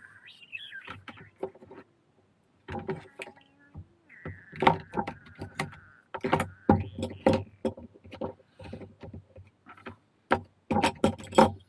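Metal leather-punch dies clinking and clattering as they are handled and sorted, with a drawn-out squeak a few seconds in.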